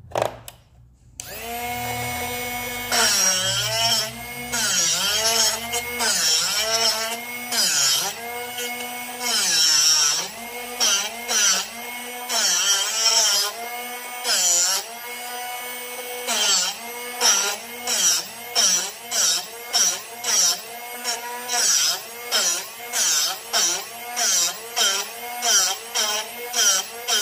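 Drill Doctor drill bit sharpener's motor switches on about a second in and runs with a steady hum. Each time the bit in its chuck is turned against the grinding wheel, the pitch dips under the load and a gritty grinding hiss rises. In the second half the grinding passes come regularly, about one a second, as a chipped, badly ground bit is resharpened.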